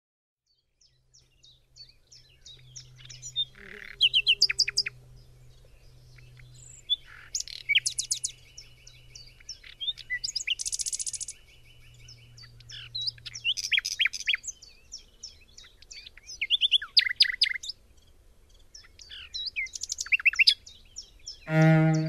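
A songbird singing in varied phrases of rapid chirps, trills and whistles separated by short pauses, with a long buzzing trill near the middle. A low bowed string note, cello-like, comes in loudly just before the end.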